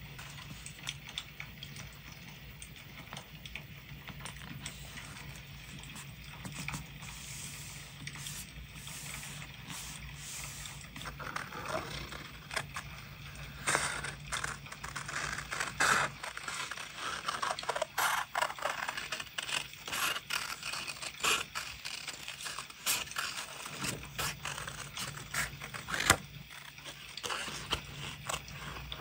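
Paper handling, then scissors cutting scrapbook paper. Soft rustles of hands smoothing paper on a journal page give way, about a third of the way in, to crisper paper rustling and repeated sharp snips as small scissors cut a shape out of a patterned sheet.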